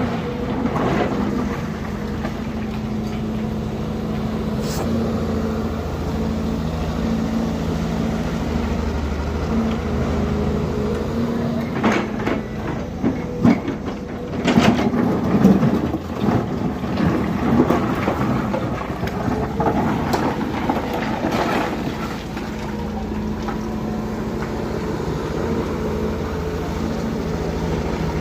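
Diesel engine of heavy earthmoving machinery running steadily, its pitch stepping up and down as it works. A series of loud knocks and clanks comes in the middle, typical of a bucket working in mud and stone.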